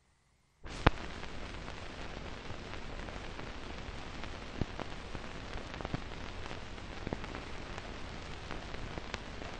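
Hiss and crackle of an old film soundtrack, with scattered clicks and pops; it starts suddenly just under a second in with a sharp click.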